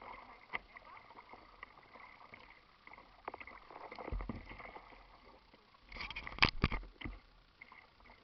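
Small waves lapping and slapping against the hull of a plastic kayak, with scattered small splashes and knocks. A louder cluster of knocks and splashes comes about six to seven seconds in.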